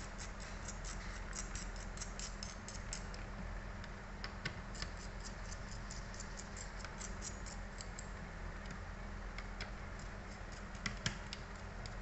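Small irregular ticks and clicks of a screwdriver turning the small screws that hold a laptop's CPU heatsink down, in clusters with a few sharper clicks, over a steady low hum.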